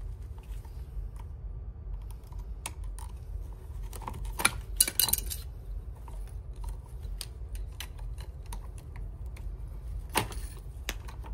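Small sharp plastic clicks and rattles of MC4-type solar cable connectors being unlatched and pulled apart with a plastic disconnect tool, with a quick run of louder clicks about halfway through and another sharp click near the end.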